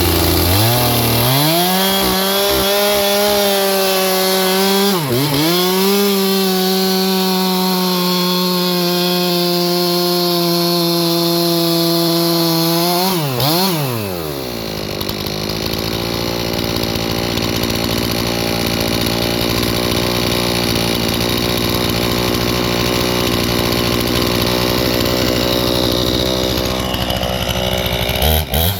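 Skil electric chainsaw running at high speed, its pitch dipping briefly about five seconds in. About halfway through the pitch falls sharply and stays lower and rougher as the chain bites into the tree under load.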